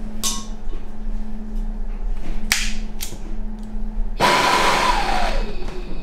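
Handheld gas blowtorch being lit: a few sharp clicks of the igniter, then a little after four seconds the flame catches and hisses steadily, with a tone in the hiss that falls as it settles.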